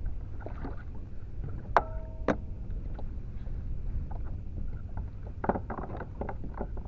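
Steady low rumble of wind and water around a fishing kayak, with two sharp knocks on the boat about two seconds in, the first ringing briefly, and a run of lighter knocks near the end.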